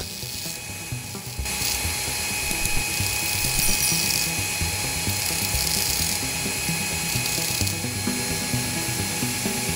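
Belt grinder running with a steel rod held against its abrasive belt, grinding a cone-shaped point onto the rod's end: a steady grinding hiss over the motor's whine, growing fuller about a second and a half in as the rod bites into the belt.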